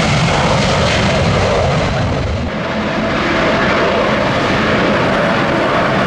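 Jet airliner engines running at high power, a loud, steady sound. About two and a half seconds in it dips briefly and carries on as a steadier jet engine sound with a hum in it.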